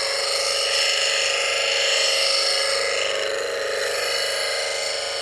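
Bench grinder running with a steady hum while a turning gouge is held against its CBN wheel and swung across it, grinding a fingernail profile with an even hiss.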